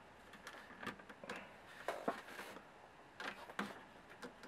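Faint scattered clicks and short scrapes of a plastic wire connector being pushed onto the pins of an Amstrad MP-3 TV tuner's circuit board, a tight fit.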